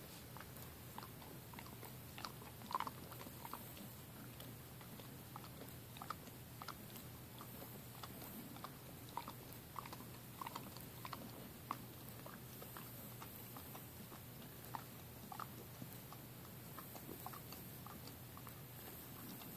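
A dog licking her mouth and foreleg over and over: faint wet smacking clicks at an irregular few per second, with a small cluster a little under three seconds in, over a low steady hum. The licking is her trying to clear blood from a bleeding tumour in her mouth (oral osteosarcoma).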